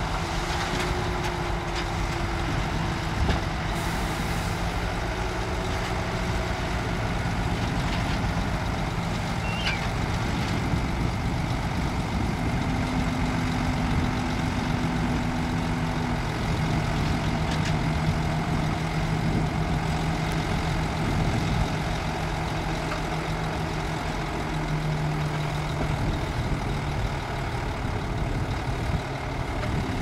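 Diesel engine of a dump truck running steadily while its hydraulic hoist tips up the loaded bed to dump sand.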